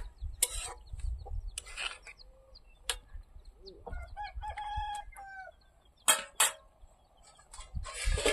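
A rooster crows once, about four seconds in: one pitched call that drops at its end. Short, noisy scraping strokes come before and after it.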